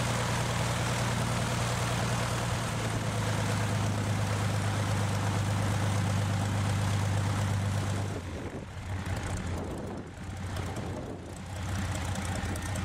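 Antique airplane's piston engine idling with a steady low drone, which drops and turns uneven about eight seconds in.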